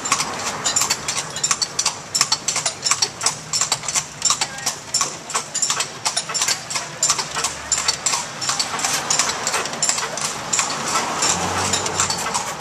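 A carriage horse's hooves clip-clopping on a paved street at a walk: a continuous, uneven run of sharp clicks. A motor vehicle engine runs under the hoofbeats.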